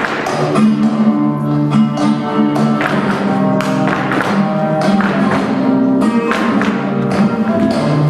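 Flamenco music led by guitar, with plucked and strummed notes, sharp percussive strikes and some held low notes.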